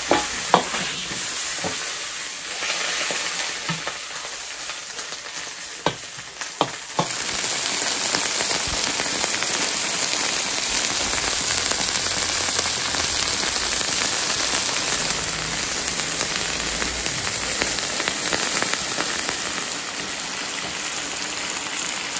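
Fried fish pieces, onion and chilies sizzling and bubbling in a little water in an iron wok as they braise, a steady hiss. A few sharp clicks of a metal ladle on the wok come in the first seven seconds, and the sizzle then grows louder.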